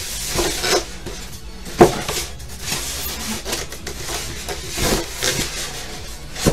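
Packaging being handled during an unboxing: rustling and scraping with a few knocks, the sharpest about two seconds in and a short cluster of them around five seconds.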